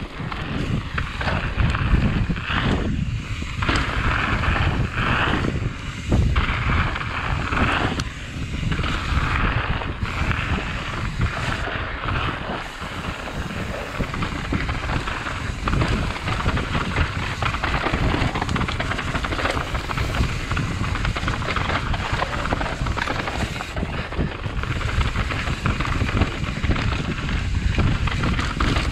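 Wind buffeting the microphone over the rumble and rattle of a mountain bike rolling down a rough dirt trail, with frequent short knocks as the tyres hit bumps.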